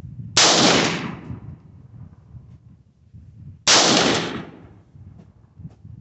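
Two shots from a .223 AR-15-style rifle, a little over three seconds apart, each trailing off over about a second.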